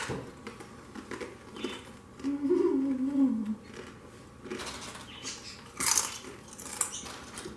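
Tortilla chips crunching in short, sharp bites as two people eat them with hot salsa. Between about two and three and a half seconds in, one of the eaters gives a short closed-mouth hum that steps down in pitch.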